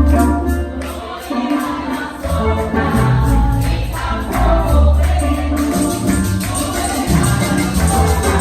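Live Pentecostal worship music: voices singing over a band with heavy bass and a steady tambourine rhythm.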